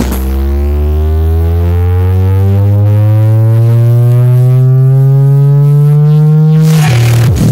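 A loud, slowly rising electronic tone, a build-up sweep, played through a sound truck's speaker wall, climbing steadily for about seven seconds before the beat of the music crashes back in near the end.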